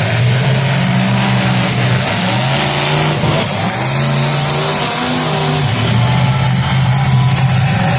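Demolition derby cars' engines revving, several at once, their pitch rising and falling.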